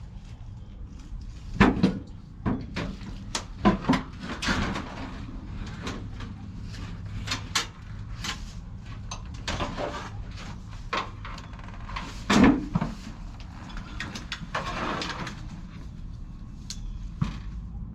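Irregular knocks and clatter of tools and parts being handled during a condenser installation, several sharp knocks close together near the start and another loud one about two-thirds of the way through, over a steady low hum.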